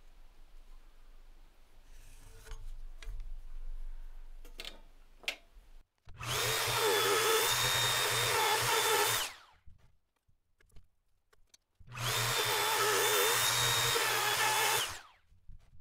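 A handheld electric power tool runs in two bursts of about three seconds each, spinning up with a whine and winding down at each stop. Before them come faint rubbing and light taps on wood.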